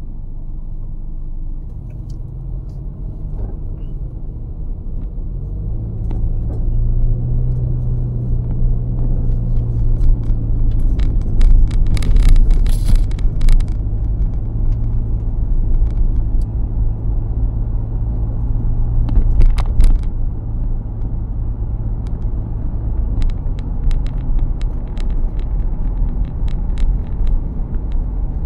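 Car cabin rumble while driving: low engine and road rumble that grows louder as the car pulls away about six seconds in, then holds a steady drone at cruising speed. A cluster of sharp clicks and rattles comes around the middle, and another a few seconds later.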